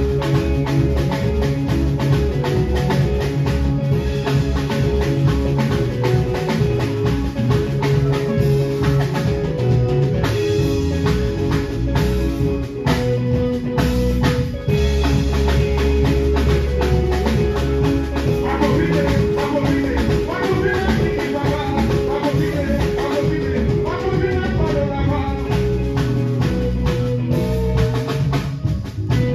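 Live ndombolo band playing a steady, driving groove on drum kit, congas and electric guitars, with a winding lead line in the middle stretch.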